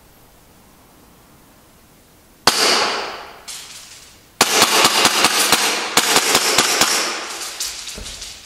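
Tokyo Marui S&W M&P9 gas blowback airsoft pistol firing: two single shots about two and a half seconds in, then a rapid string of shots from about four and a half seconds in.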